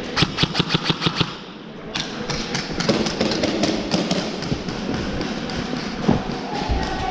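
Airsoft gun firing a quick burst of about ten shots in the first second and a half, followed by scattered shots and knocks.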